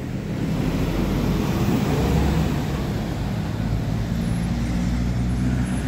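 City bus engine running as the bus pulls past and drives off along the terminal lane, a steady low engine note with road noise that grows a little louder about two seconds in.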